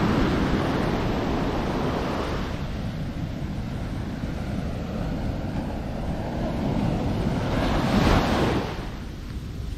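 Steady rushing of surf on a beach with wind buffeting the microphone. The noise eases a few seconds in, swells briefly near the end, then drops off.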